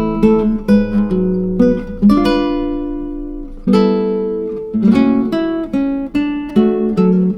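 Background music of acoustic guitar, plucked notes and strummed chords ringing and fading.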